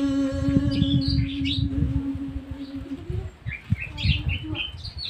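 A man's voice holds the long final note of a Gojri baint folk verse, a single steady pitch that stops about three seconds in. Small birds chirp around it, with a run of quick high chirps after the note ends.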